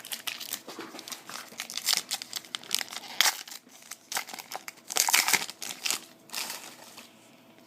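Trading card pack wrapper crinkling and tearing as a pack is opened and the cards are handled, in irregular crackling rustles with louder bursts about two, three and five seconds in.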